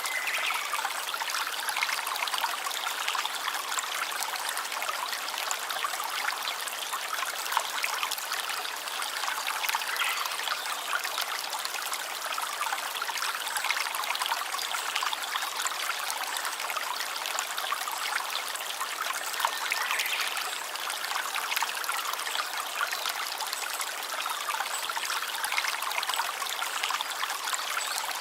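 Running water: a small stream trickling and babbling steadily.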